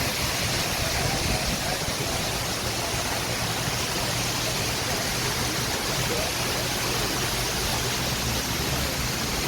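Steady rush of water falling down a large man-made waterfall fountain, an even unbroken noise.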